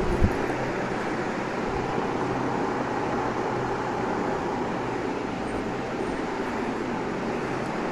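Steady rushing background noise at an even level, with a low knock just after the start.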